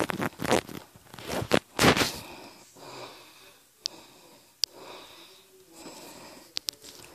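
Handling noise on a phone's microphone: rubbing and scraping in loud bursts over the first two seconds, then softer rustling with a few sharp clicks.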